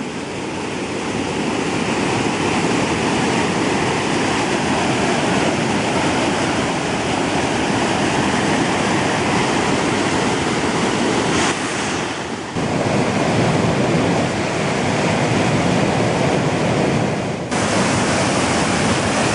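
Flood-swollen river pouring over a dam spillway and through rapids: a steady loud rush of white water, dipping briefly about twelve seconds in.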